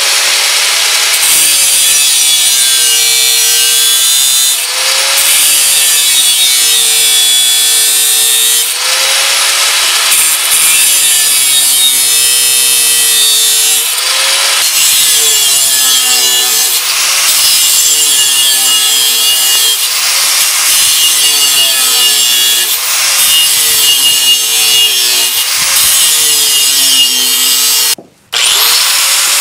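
Angle grinder with a thin cut-off wheel making a run of short cuts into the rim of a domed steel disc. The motor's whine drops each time the wheel bites into the steel and climbs back between cuts, over and over, with a short break near the end.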